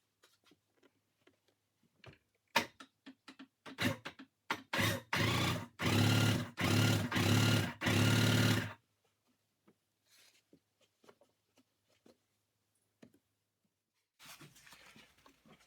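Sea-Doo's twin-cylinder two-stroke engine being cranked by its electric starter with the spark plugs out, in a run of short cranking bursts from about four to nine seconds in, after a few clicks. The engine turns over freely: it is not seized.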